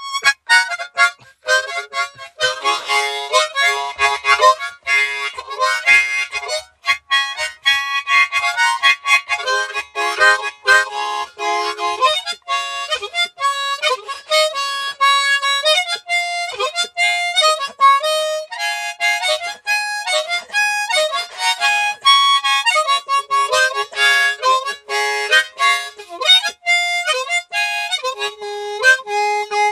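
Harmonica playing a quick, continuous run of short notes and chords, with a few notes held for about a second.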